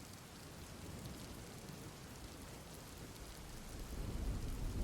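Steady rain falling, with a low rumble of thunder starting to swell in the last second or so.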